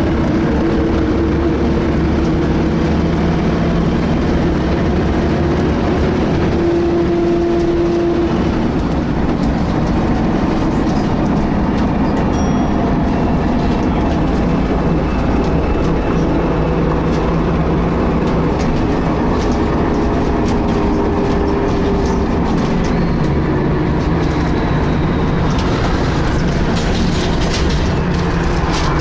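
A DAF-chassised Alexander ALX300 bus on the move, heard from inside: a steady rumble with a whining tone that slowly rises and falls in pitch. The uploader says it sounds like a whining cooling fan but cannot tell what it is. Light rattles come through near the end.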